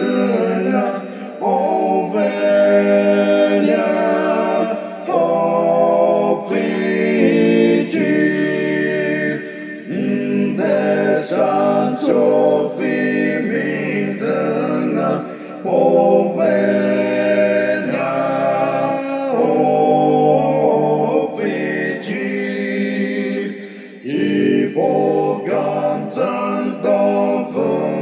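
Unaccompanied voices singing a hymn in parts, line by line, with brief breaks between phrases.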